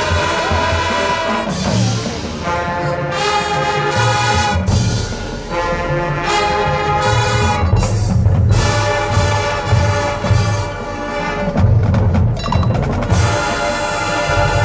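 High school marching band playing its field show: full brass chords held and changing every second or so over steady drum and percussion hits.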